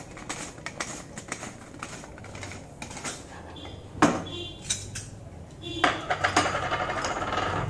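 Brass utensils clinking and knocking against each other as they are handled on a table. There are many small clicks, a sharper knock about four seconds in, and brief metallic ringing near the end.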